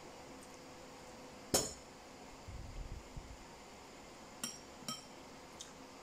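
A metal fork clinking against a ceramic bowl: one sharp, ringing clink about a second and a half in, then two lighter clinks a half second apart near the end, with a few soft low thuds in between.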